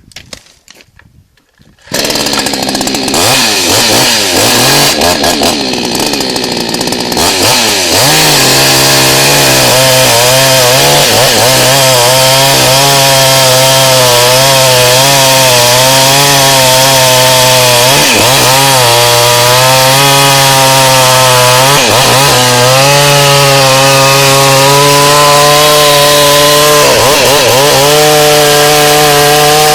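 Kraft Hart 58 cc two-stroke chainsaw coming in suddenly about two seconds in, then running at high revs with a steady pitch that sags briefly and recovers several times.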